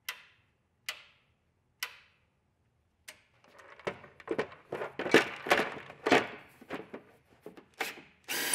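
Three sharp clicks about a second apart as the mower's dash toggle switch is flipped to test the LED light bar. Then a run of knocks and clatter as the plastic fender is lifted and fitted onto the mower. Near the end comes a loud burst from a cordless impact driver starting on a fender screw.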